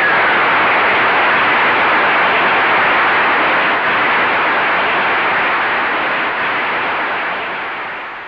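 Audience applauding steadily, fading out over the last two seconds.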